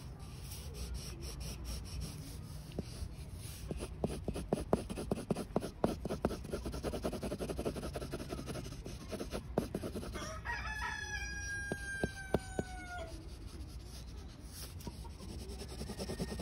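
Clutch-pencil lead scratching on paper in quick hatching strokes, then a rooster crows once, a single call of about two and a half seconds that drops in pitch at the end.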